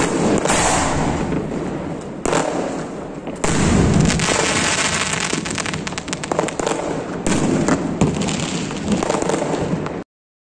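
Aerial firework shell, a 4-inch gilt palm-tree sky shot, bursting and showering stars with a dense, continuous crackle of many sharp pops. A louder bang comes about three and a half seconds in. The sound cuts off suddenly near the end.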